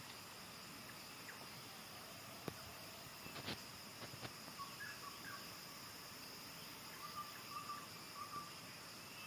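Steady high drone of insects, crickets among them, with a couple of sharp clicks a few seconds in and a bird giving short, faint chirps in two groups.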